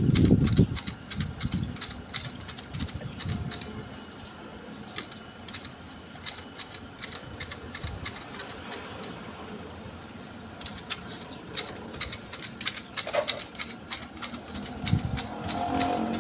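Manual hedge shears snipping through a Fukien tea hedge: quick runs of crisp blade clicks, sparser in the middle and thickening again near the end. A brief low rumble at the start.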